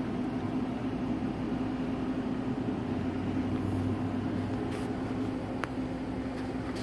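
Steady low machine hum inside the operator's cab of a Comansa 290 tower crane, with one faint click near the end.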